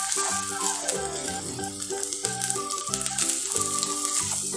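Boiled potatoes sizzling in melted butter and onion in a frying pan, stirred and pressed with a wooden spoon, over background music.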